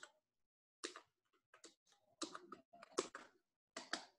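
Computer keyboard typing: a run of short, quick keystroke clicks coming in small clusters as a word is typed.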